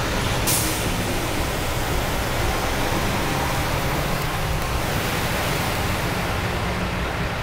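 Steady rushing noise of traffic on a flooded freeway: tyres on the wet road and water spraying up as vehicles drive through the flooding, heard from inside a car.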